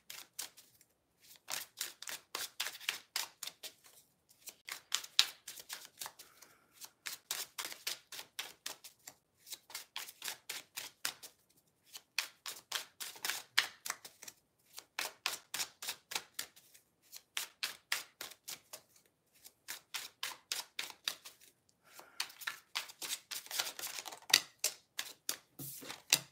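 A deck of tarot cards being hand-shuffled: quick runs of card clicks in bursts of a second or two, with short pauses between them, over and over.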